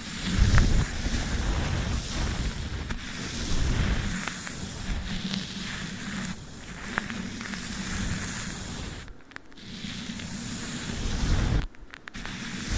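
Close-miked sticky tape and a brush worked against the microphone: continuous scratchy rustling and crackling with low rumbling bumps and a few sharp clicks. The sound drops out briefly twice, about nine and twelve seconds in.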